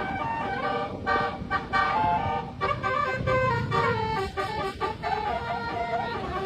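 Telolet-style Basuri multi-tone bus horn playing a melody of stepping, flute-like tones, with a low vehicle rumble beneath.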